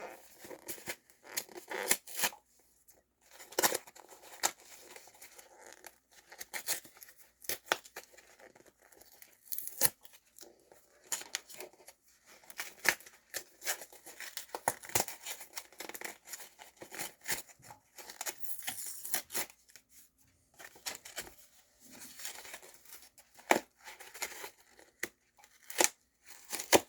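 Sock packaging being opened and handled: irregular tearing, rustling and crinkling of packaging, with short rasps and clicks all the way through.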